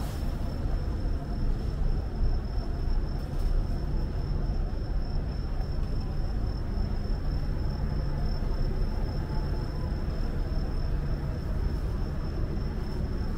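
Night city street ambience: a steady low rumble of traffic and a continuous thin high-pitched tone.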